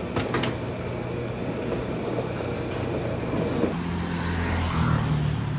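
Road traffic: a vehicle engine running with a steady low hum, and a couple of sharp clicks just after the start.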